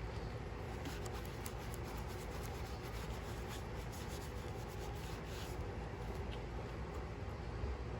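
Hand wiping and rubbing on the truck's roof, a quick run of short scratchy strokes that stops about five seconds in, over a steady low background hum.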